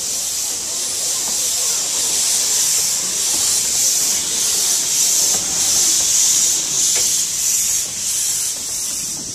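Narrow-gauge steam locomotive pulling away, with a loud hiss of steam that pulses about twice a second in time with its beats.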